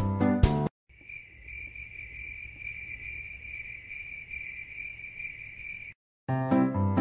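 Crickets trilling, a steady high-pitched continuous buzz with a faint pulse, for about five seconds. Piano background music plays at the very start and comes back near the end.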